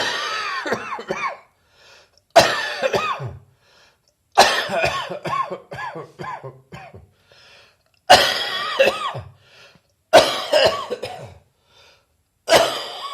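A person coughing in six fits about two seconds apart, each a hard cough followed by a string of smaller hacking coughs; a chesty cough bringing up phlegm.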